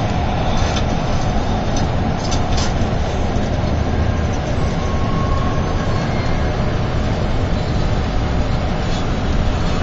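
Steady engine and road noise of a long-distance coach at speed, heard from inside the cabin, with a few brief knocks in the first three seconds.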